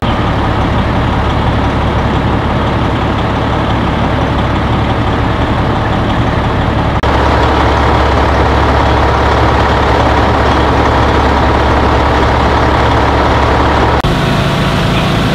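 Heavy fire-apparatus engine running steadily at a working fire, a loud continuous drone. Its tone changes abruptly twice, about seven seconds in and again near the end.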